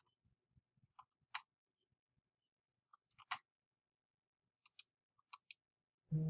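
Faint, scattered computer mouse clicks, single and in quick pairs. Just before the end a low, steady electronic tone begins.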